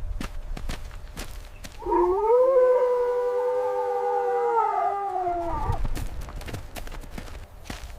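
An animal howling: one long howl of about four seconds that rises at the start, holds steady, and falls away at the end.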